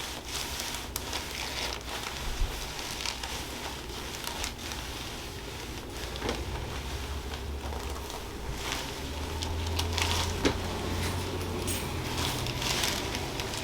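Rustling and crinkling handling noise with scattered small clicks, two sharper ones about two and a half and ten and a half seconds in, over a steady low hum.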